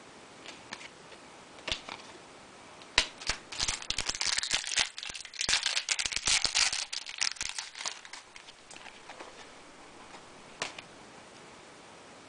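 Foil trading-card pack wrapper being torn open and crinkled, a dense stretch of crackling from about three seconds in to about eight seconds. Light clicks and taps of cards being handled come before and after.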